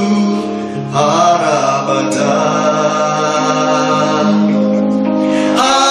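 A man singing a slow Hausa worship chorus into a microphone, drawing out each word on long, held notes.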